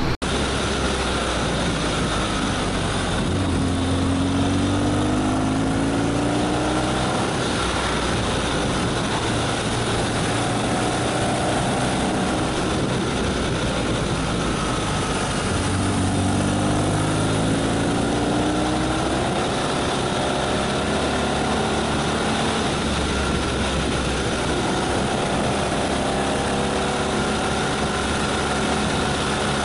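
Motorcycle engine running while riding, its pitch climbing several times as the bike accelerates, over steady wind and road noise.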